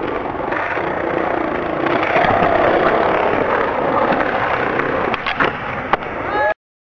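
Skateboard wheels rolling on smooth concrete: a steady rolling rumble with a few sharp clacks of the board near the end, then the sound cuts off suddenly.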